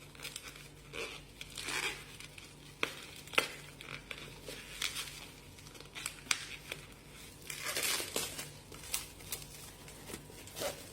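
Plastic packaging and shock-protection padding crinkling and rustling as a parcel is unpacked by hand, with irregular sharp clicks and snaps.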